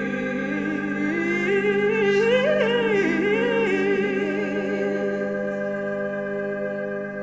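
Closing bars of a pop song: a sustained chord holds steady while a wordless voice with vibrato wavers up and down over it, and the music begins to fade near the end.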